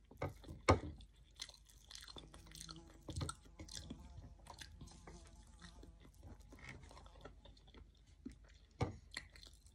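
Close-up chewing of a mouthful of rice and fried omelette eaten by hand: soft irregular mouth clicks, with a couple of louder clicks, one just after the start and one near the end.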